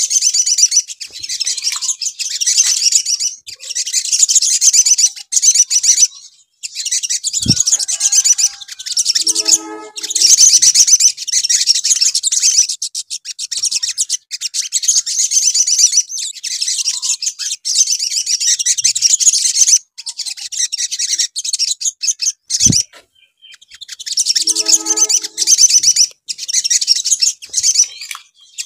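Olive-backed sunbirds singing: fast, high, chittering trills, one phrase after another with short breaks. Twice a short dull thump is followed by a lower-pitched call.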